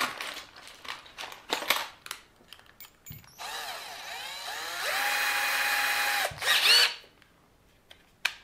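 Small electric drill spinning up and running for about three seconds, its pitch rising as it gets up to speed and stepping louder partway. It ends with a brief louder burst, then stops. A few light clicks and rattles come before it.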